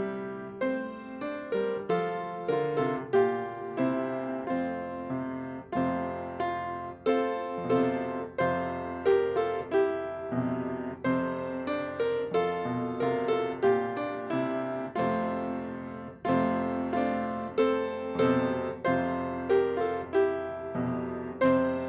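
Solo piano playing a steady, chordal piece: notes and chords struck at an even, moderate pace, each ringing and fading before the next.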